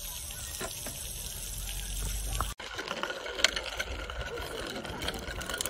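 A steady hiss, then after a sudden cut, a child's small bike with training wheels rolling and rattling over asphalt, with many scattered clicks.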